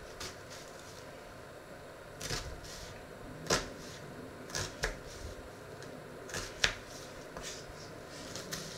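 Small kitchen knife cutting through a peeled onion held in the hand over a wooden cutting board: a series of unevenly spaced crisp cuts and knocks, the sharpest about two-thirds of the way through.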